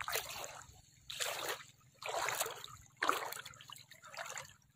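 Shallow seawater splashing and sloshing in short bursts, about once a second.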